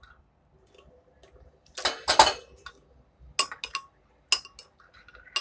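Metal teaspoon stirring a sauce in a ceramic bowl and clinking against its side: a louder clatter about two seconds in, then several separate sharp clinks.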